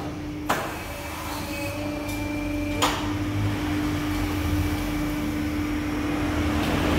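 Paving-block press machine's electric motor humming steadily at one pitch, with two sharp knocks, about half a second in and near three seconds in.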